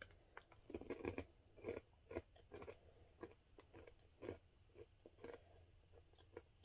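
A person chewing crunchy fried corn snack chips, a string of irregular crisp crunches that thin out near the end.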